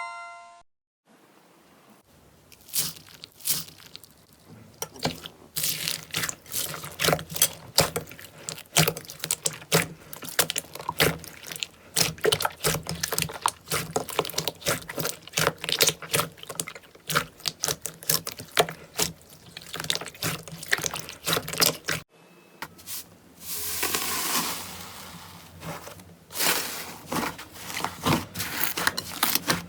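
Slime being squeezed and pressed by hand: a dense run of wet, sticky clicks and pops. The sound breaks off about two-thirds through and picks up again with another handful of slime. A short chime dies away at the very start.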